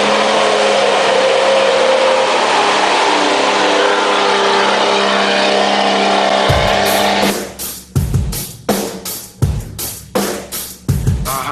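A 4x4 off-road vehicle's engine running steadily under load. About six and a half seconds in, loud rock music with a fast, hard-hit drum beat cuts in.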